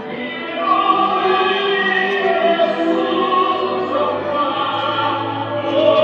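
Orchestral music with operatic, choir-like singing in long held notes, played over the show's loudspeakers; it swells a little about half a second in.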